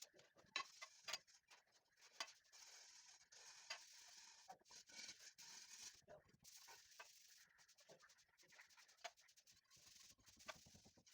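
Near silence, with faint scattered clicks and taps at irregular intervals.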